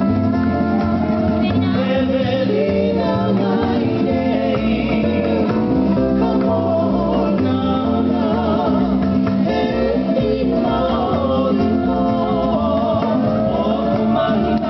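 Hula music: a sung melody over plucked guitar accompaniment, playing steadily.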